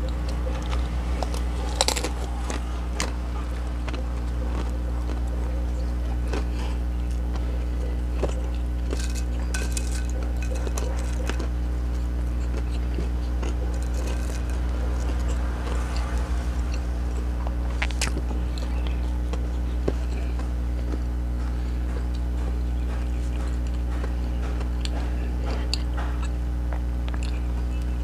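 Close-miked eating: bites into a burger topped with crisp chips, with crunching and wet chewing, and scattered sharp crunches. A steady low electrical hum sits under it throughout.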